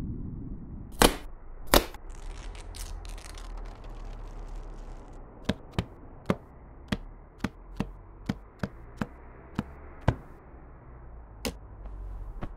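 Sharp clicks or snaps over a low rumble: two loud ones about a second in, then about a dozen quicker, irregular ones from about five to ten seconds in, and one more near the end.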